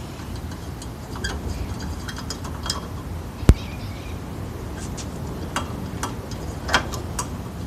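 A screwdriver backs screws out of a Craftsman radial arm saw's handle, with scattered light metallic ticks and clicks. There is one sharp knock about three and a half seconds in and a smaller click near the end.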